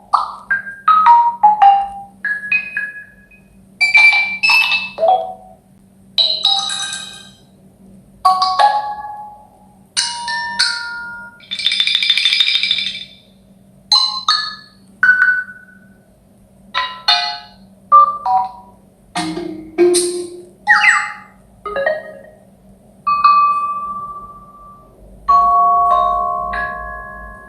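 Samsung Galaxy S25 Plus notification tones played one after another and slowed down. About a dozen short chimes and mallet-like jingles of a few notes each, separated by gaps of about a second, with longer held tones near the end. A faint steady low hum runs underneath.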